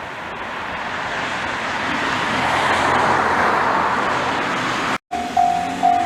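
The rushing noise of a passing vehicle swells and fades. After a sudden cut, a Japanese railway level-crossing alarm starts, a high electronic ding repeating about twice a second.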